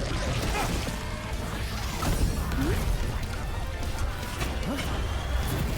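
Animated fight-scene soundtrack: music under a dense run of crashes, hits and whooshes.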